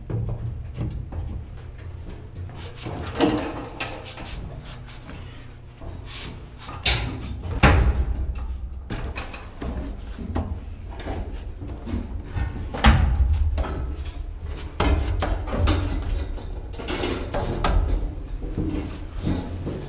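Irregular knocks and clanks of heavy steel hatch and door fittings and ladder rungs being handled, some sharp and loud, over a low rumble. The loudest knocks come about a third of the way in and again past the middle.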